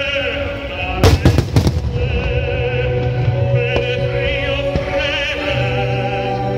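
Fireworks display set to operatic music: a sung voice with wide vibrato over held backing notes. A quick cluster of firework bangs comes about a second in, and a few single cracks follow later.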